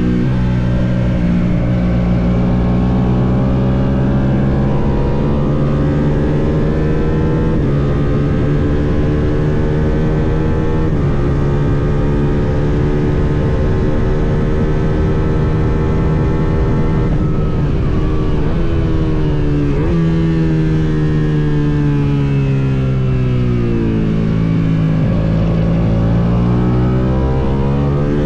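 Suzuki SV650 race bike's 645 cc V-twin engine running hard at high revs, its pitch dropping sharply at upshifts in the first half. About two-thirds of the way through the revs fall away under braking and downshifts, then climb again as it accelerates out of the corner. Wind rushes over the microphone throughout.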